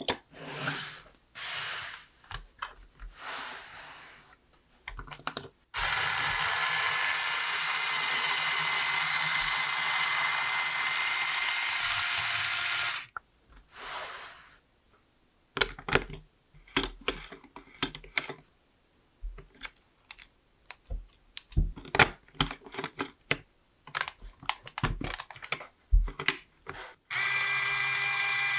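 LEGO bricks clicking and snapping together in short, irregular runs as a model is assembled. Twice a small LEGO electric motor and its gears whir steadily: once for about seven seconds in the middle, and again from near the end as it starts driving the crank mechanism.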